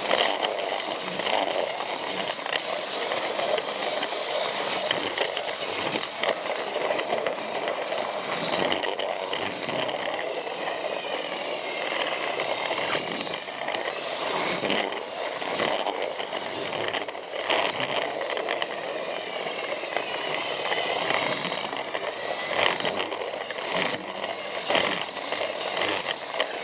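Takara Tomy Plarail toy train running on plastic track: its small battery motor and gearbox whir steadily, with irregular clicks and rattles throughout.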